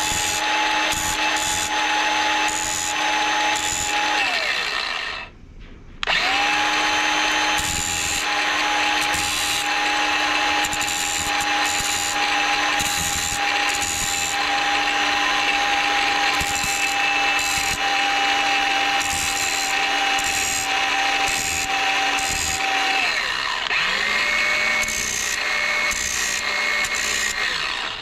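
High-speed electric grinder grinding the worn engagement teeth of a Tofaş 4-speed gearbox's 4th-gear part to make them sharp again, so the gear will engage. The motor's steady whine and the scrape of grinding stop and wind down after about four seconds, start again a second or so later and run on steadily, then near the end run briefly at a lower pitch before winding down.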